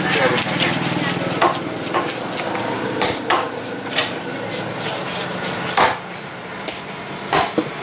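Large curved cleaver slicing giant trevally on a wooden chopping block: irregular sharp knocks of the blade on the wood, roughly one every second or so, over steady background noise.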